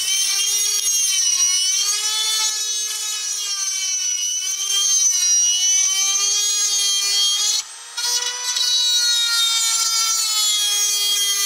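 High-speed handheld rotary tool drilling through the sheet-metal firewall of a Chevy S10, its motor whine sagging and recovering in pitch as the bit bites. It cuts out briefly about two-thirds of the way through, then spins up again.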